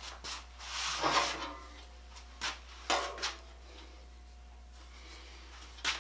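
Handsaws being handled at a wooden workbench: a scrape about a second in as a saw is drawn off the bench, then several short knocks of the wooden handle and steel blade.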